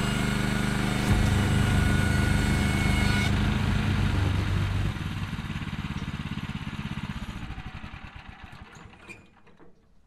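Kohler 14 hp gasoline engine on a Woodland Mills HM126 bandsaw mill running steadily, then shut off about five seconds in and slowing to a stop over the next few seconds.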